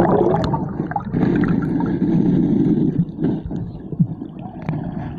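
Muffled underwater gurgling and rushing of river water around a submerged camera, heaviest one to three seconds in, with a few sharp knocks.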